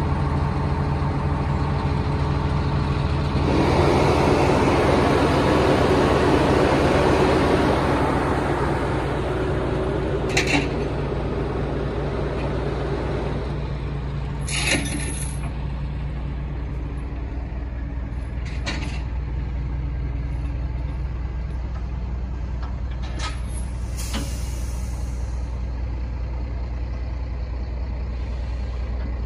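Heavy diesel engine idling steadily, with a louder, rougher stretch a few seconds in. Several brief sharp hisses or clicks come through later.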